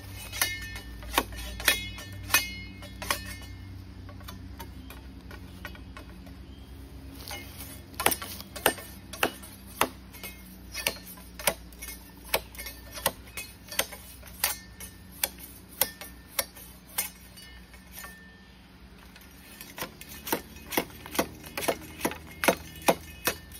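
Blunt machete chopping the side branches off a green bamboo culm, a sharp knock at each stroke. A few strokes near the start, some with a brief metallic ring, then a steady run of chops at nearly two a second through the middle and a quicker flurry near the end.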